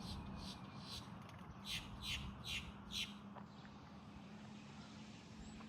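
A bird giving a run of short, harsh squawks, about two a second, that stops about three seconds in, over a faint low steady hum.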